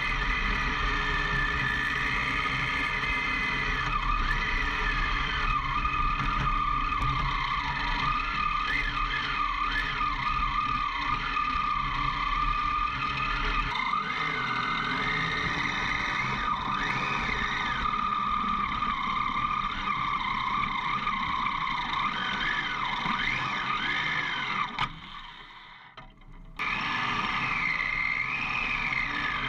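Off-road motorcycle engine running under changing throttle on a rough dirt trail, its pitch rising and falling as the rider works the throttle. Near the end it drops away sharply for about a second and a half, then returns.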